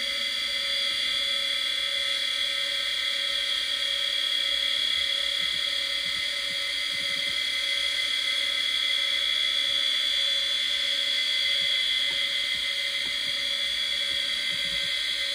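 Conner Peripherals CFS1621A (Seagate ST31621A) hard drive, three platters spinning at its 3600 rpm, giving a steady high-pitched whine over a fainter lower hum.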